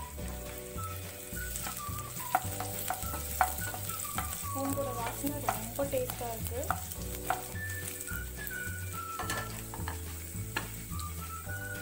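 Chopped garlic sizzling in hot oil in a nonstick frying pan, stirred with a wooden spatula that scrapes and taps against the pan several times through the middle.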